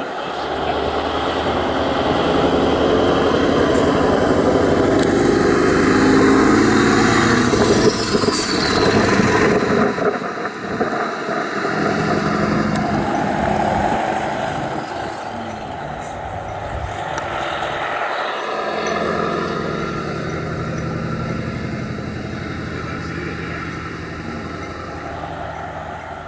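A classic diesel cabover truck pulling a trailer drives past on the racetrack. Its engine is loudest as it passes close, and the pitch drops as it goes by. Further off, the engine note rises and falls a few times as it pulls away and fades.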